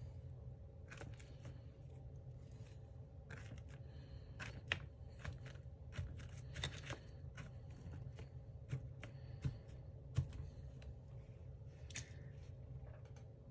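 Paintbrush dabbed end-on onto paper to stipple paint dots: a series of irregular taps over a low steady hum.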